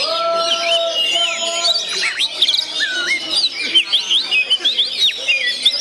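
Oriental magpie-robin (kacer) singing a fast, varied stream of whistled chirps and rising and falling glides, with other bird calls overlapping; a steady held note sounds for the first couple of seconds.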